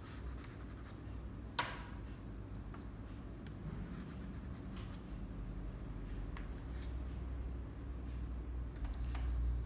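Soft pastel stick scratching and rubbing on pastel paper in short strokes, with scattered light ticks and one sharper click about one and a half seconds in.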